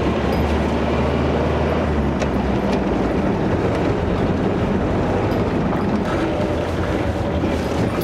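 GAZ Volga M21 driving along, its engine and tyre noise running steadily.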